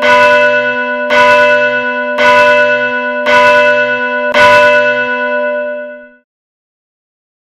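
A bell tolling at one pitch, struck five times about a second apart over a steady low hum. It then rings away and fades out to silence about six seconds in.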